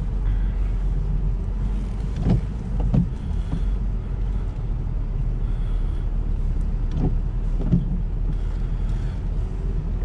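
Lada Niva Travel heard from inside the cabin while driving slowly off-road: a steady low engine and road drone, with a few short knocks, two about two to three seconds in and two around seven seconds.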